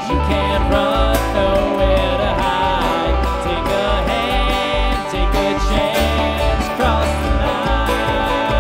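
Live bluegrass band playing an instrumental passage, with banjo and guitar picking over a steady upright-bass pulse. It is a direct soundboard mix with little room or crowd sound.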